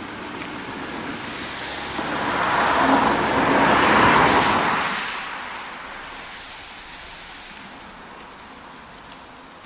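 A car passing by: road noise swells to a peak about four seconds in and fades away over the next two seconds, over a steady background hum.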